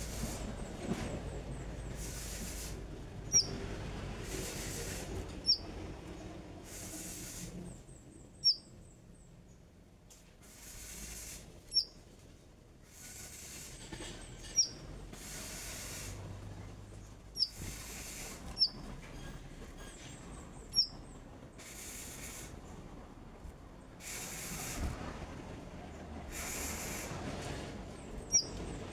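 Konin songbird giving single short, sharp, high chirps every second or few seconds, over a background hiss that swells and fades.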